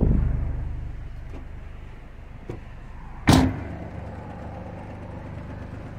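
A 12-inch subwoofer in a homemade bandpass box playing a low sine-wave test tone, with a loud buzzing rattle that fades over the first second into a steady low hum. One sharp knock about three seconds in.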